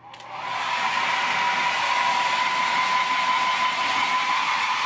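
Handheld hair dryer running steadily, a constant blowing rush with a thin steady whine. It comes up to full strength within about the first half second.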